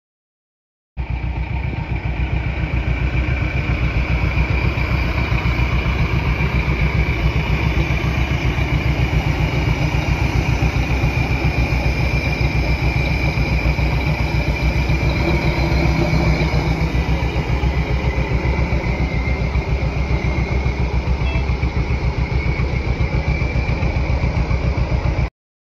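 A small engine pulling a miniature railroad train runs steadily with a fast, even beat as the train rolls along. It cuts in sharply about a second in and stops sharply near the end.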